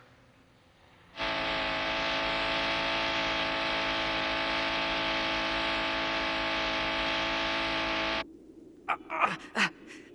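Anime soundtrack: a loud, sustained droning chord held on one pitch, starting about a second in and cutting off suddenly some seven seconds later. A few short, sharp sounds follow near the end.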